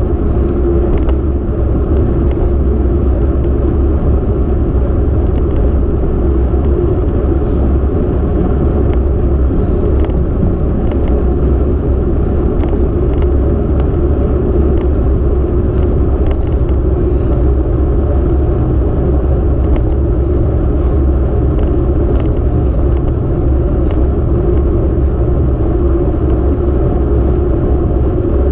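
Steady wind rush buffeting the microphone of a camera moving along an asphalt road, mixed with the hum of tyres rolling on the road surface.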